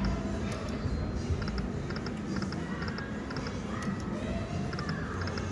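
Slot machines chiming with quick electronic beeps, short tones in twos and threes repeating about every half second, with a couple of brief gliding tones partway through. Under them is a steady background hubbub of a casino floor.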